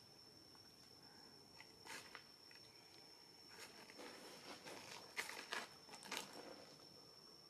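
Faint outdoor ambience: a steady high-pitched whine throughout, with a few soft rustles and clicks, the loudest about five to six seconds in.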